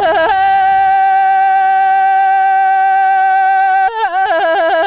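A singer's voice in a Tibetan folk song: one long, steady high note held for about three and a half seconds, then breaking into quick ornamented turns of pitch near the end.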